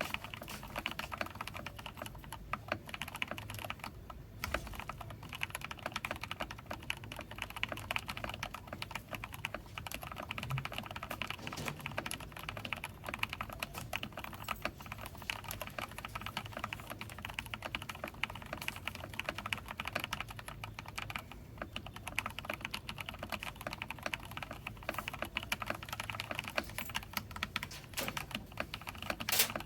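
Typing on a Nexttime X75 mechanical keyboard with lubed Gateron Black linear switches, a stainless steel plate and SA-profile ABS keycaps: a steady stream of keystroke clacks with a couple of brief pauses.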